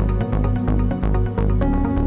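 Background electronic music with a steady beat and a sustained bass line.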